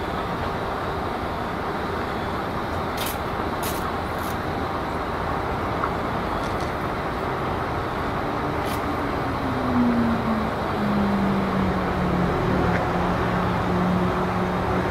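Narrow-gauge steam locomotives standing in steam: a steady hiss and rumble, with a few sharp clicks in the first half and a low hum that drops in pitch about nine seconds in and then holds steady.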